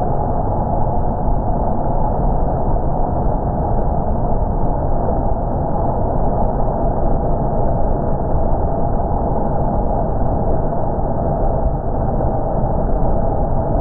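White water rushing over the rocks of a small river's falls: a steady, even rumble, low and dull with no high hiss.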